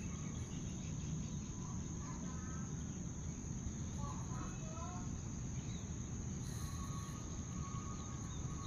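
Steady, high-pitched drone of crickets or similar insects, with a few faint bird chirps about halfway through, over a low steady rumble.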